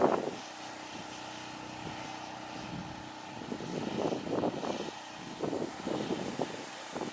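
A steady engine drone, with gusts of wind buffeting the microphone in the second half.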